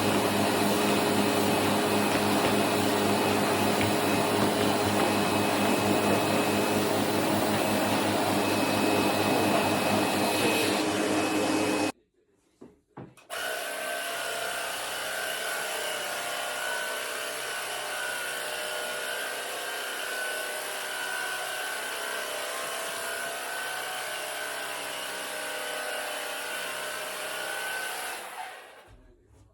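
Vacuum cleaner running steadily on carpet with a constant hum; about twelve seconds in it cuts off, and a quieter steady motor with a high whine runs in its place until it fades near the end.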